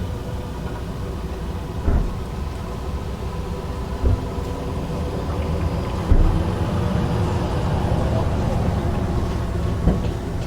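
Summer beach parking lot ambience: a steady low rumble of vehicles, broken by four short, dull thumps, the loudest about six seconds in.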